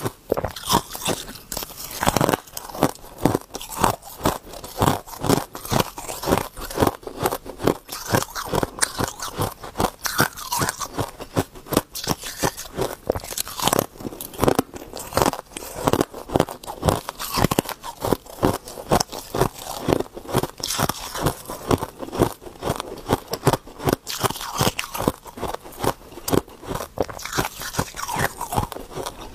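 Close-up crunching and chewing of a mouthful of freezer frost: crisp bites and crunches, several a second, running on without a pause.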